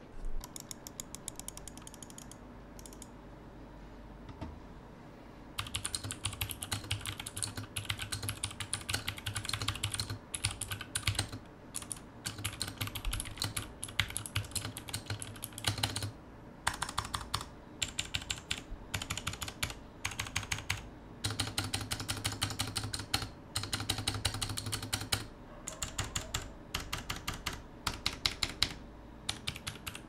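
Fast typing on a Thunderobot KC3068 65% mechanical keyboard with Thunderobot blue clicky switches and PBT keycaps: quick runs of sharp clicks in bursts broken by short pauses. The first few seconds hold only a few scattered keystrokes before the steady typing starts.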